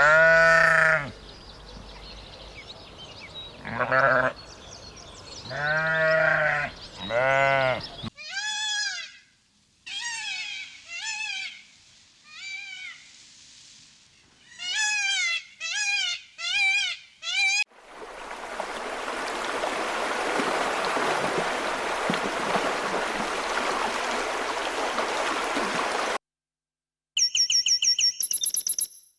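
Bleating from a farm animal, four drawn-out calls in the first eight seconds, followed by a run of short, high-pitched calls that rise and fall, and then a steady hiss lasting about eight seconds.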